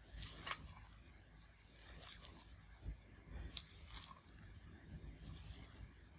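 Silicone spatula folding grated carrot into wet cake batter in a glass bowl: soft, wet squelching and scraping strokes, with a few sharp ticks as the spatula meets the glass.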